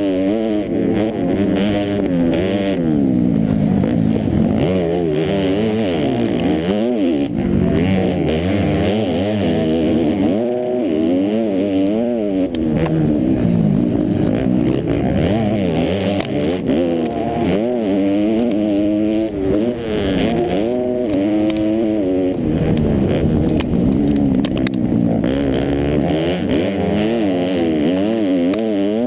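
Onboard sound of a four-stroke motocross bike's engine on a practice lap, the revs climbing and dropping over and over as the throttle is worked and the gears are shifted through corners and jumps.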